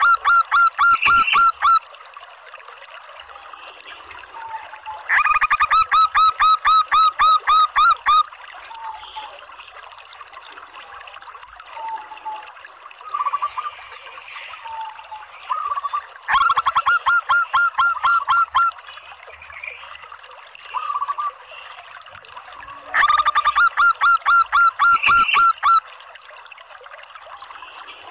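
Female zebra dove (perkutut) calling in four bursts of fast repeated notes, each about two to three seconds long, with softer single notes between. This is the local female's call used as a lure to get male zebra doves to start singing.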